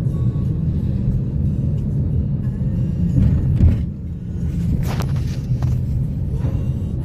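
Steady low rumble of road traffic or a car driving, with a few brief louder sounds about three to five seconds in.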